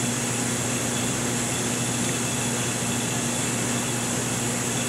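Steady whirring fan noise with a low electrical hum underneath, unchanging throughout.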